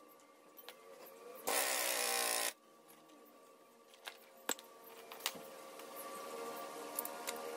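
A pneumatic impact wrench runs in one burst of about a second on the clutch centre nut of a Yamaha Y15 motorcycle during a clutch change. A few light clicks follow.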